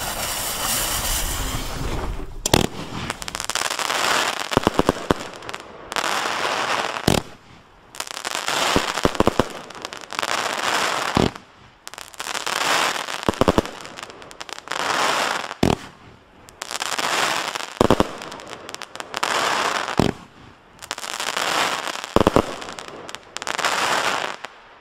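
A Mad Dog consumer fireworks cake: the fuse hisses, then the cake fires shot after shot, about one every two seconds. Each shot is a sharp launch bang followed by a second or so of crackling as the stars break.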